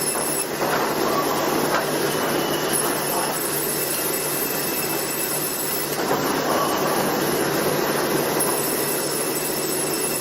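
Automatic multi-blade sawmill machine running and sawing timber: a steady low hum under dense, continuous cutting noise.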